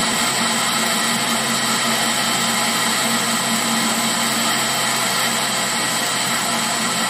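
Metal lathe running under power, turning a steel bar with a carbide tool cutting it: a steady machine whine with a constant hum underneath, unchanged throughout.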